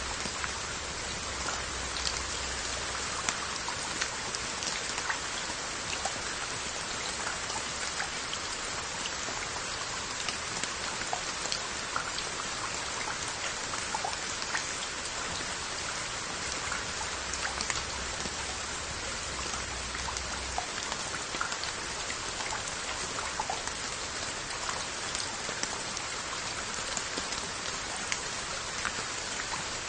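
Steady rain falling on glazed earthenware onggi jars: a continuous hiss of rain with many small, scattered drop taps on the jar lids and shoulders.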